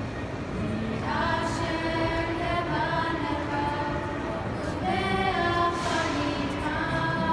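Teen choir singing a Hebrew song together, holding long notes with new phrases beginning about a second in, again near five seconds and once more near the end.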